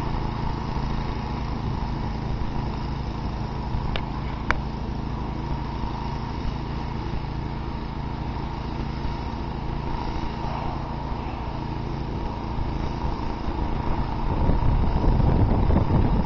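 Snapper 10-30 snowblower's 10 hp Briggs & Stratton engine running steadily under load while its 30-inch auger throws a heavy plume of snow. Two brief clicks about four seconds in, and a low rumble grows louder near the end.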